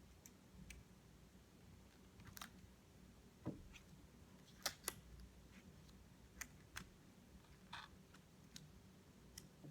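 Faint, scattered small clicks and taps, about a dozen, of a laptop keyboard and its ribbon cables being handled as the cables are fitted back into their connectors, over a low steady hum.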